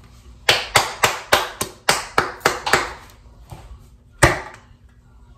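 A jar being tapped to loosen its lid: a quick run of about nine sharp taps, then one louder knock near the end.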